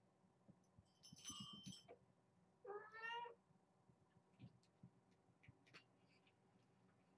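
Kittens mewing faintly: a thin high call about a second in, then a meow that rises in pitch about three seconds in, with soft taps and thumps from kittens playing.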